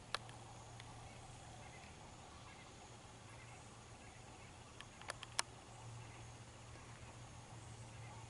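Quiet outdoor ambience with a faint steady low hum. One sharp click comes just after the start, and a quick run of three clicks comes about five seconds in.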